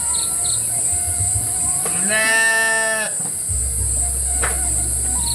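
A single livestock bleat, about a second long, about two seconds in, over a steady high insect buzz.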